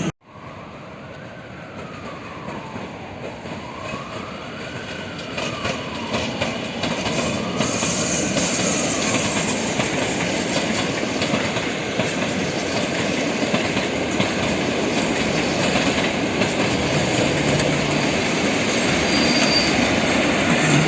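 Regional passenger train approaching on the rails, its running noise growing steadily louder over the first several seconds, then holding loud as the train runs close by.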